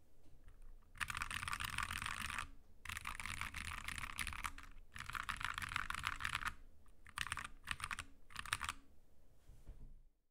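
Fast typing on a Glorious GMMK TKL tenkeyless mechanical keyboard with Drop Halo True tactile switches, in three long runs of rapid keystrokes broken by short pauses, then a few shorter bursts that stop about two seconds before the end.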